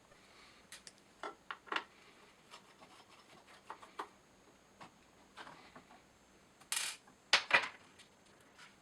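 Small hex screws and a hex wrench clicking and scraping as the plastic cover is unscrewed from a Meade LX200 telescope's fork arm, with a few louder clatters about seven seconds in.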